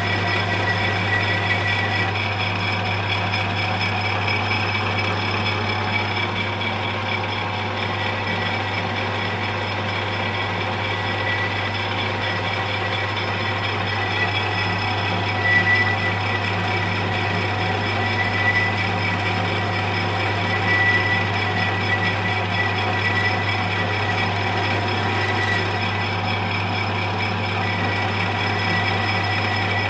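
Lathe running steadily while a boring bar machines the bore of a steel sprocket: a constant low hum with a faint high whine that swells now and then.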